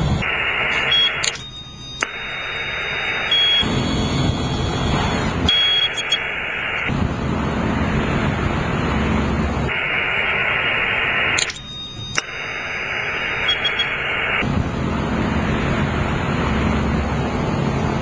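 Barrett 2050 HF transceiver's loudspeaker giving out receiver noise and static. The noise switches between a hissy band and a lower, fuller rush every second or two, in a pattern that repeats about every ten seconds, with brief high beeps at some of the switches.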